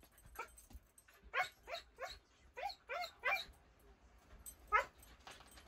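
Husky puppy giving a string of short whines and yips, about seven in all, each a brief call that slides up in pitch.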